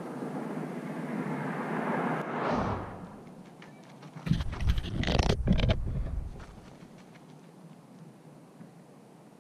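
A vehicle passing, its noise swelling and fading over the first three seconds. Then, for about two seconds, loud low rumbling and knocks close to the microphone as someone walks right past it.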